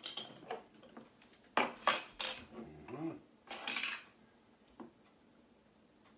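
Glassware clinking and knocking on a countertop as drinks are poured into small stemmed glasses. A few sharp separate clinks come in the first two seconds or so, then a short clattering stretch around three to four seconds in.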